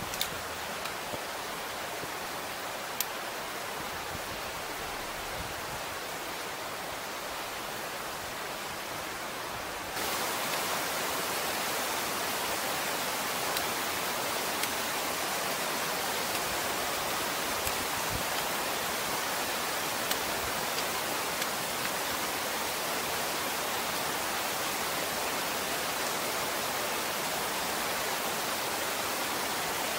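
Steady rushing of a creek and small waterfalls, an even wash of water noise that gets louder about ten seconds in.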